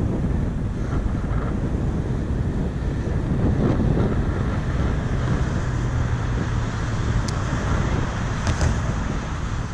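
Wind buffeting the microphone as a steady low rumble, with a couple of brief clicks near the end.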